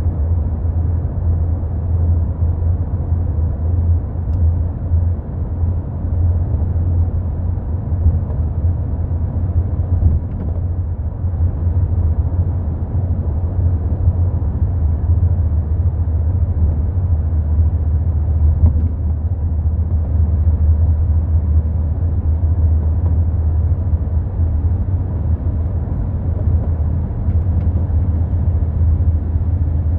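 Mk4 Volkswagen Golf on the move: a steady, loud low road-and-chassis rumble, with a few faint clicks. The recording is meant to catch the noise of a bad rear shock absorber.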